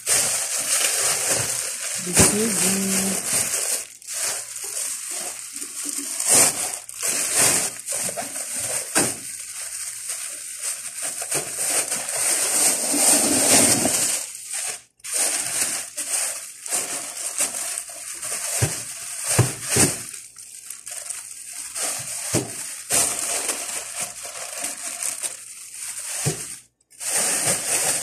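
Thin plastic bags crinkling and rustling unevenly as fish are handled and bagged, with two brief drops to silence.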